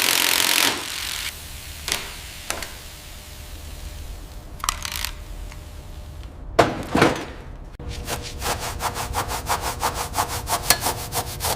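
Rhythmic abrasive rubbing strokes, about five a second, starting about eight seconds in, like hand sanding or scraping a surface. Before them come a few scattered knocks and a louder scraping sound about two thirds of the way through.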